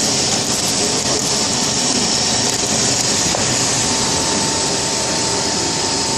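Snack pellet drying oven running: a loud, steady mechanical whir and rush from its fans, burner and conveyor, with a steady whine coming in about two-thirds of the way through.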